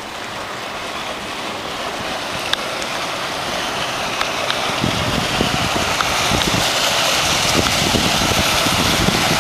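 Electric sportboat planing past at speed: the rush and hiss of its hull and wake spray on the water, growing steadily louder as it approaches.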